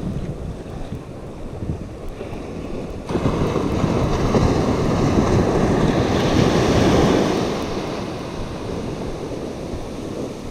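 Ocean surf with wind buffeting the microphone; about three seconds in a wave breaks and washes up the beach, swelling for several seconds and then fading.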